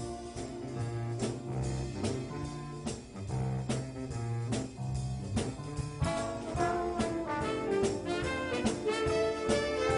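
Student band playing a holiday tune: brass over bass notes and drum hits, building louder about halfway through.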